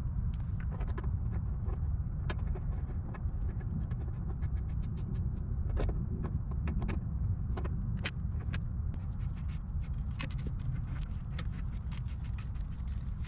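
Black steel gas pipe elbow being turned by hand onto threaded fittings, with many irregular small metallic clicks and ticks from the metal parts, over a steady low rumble.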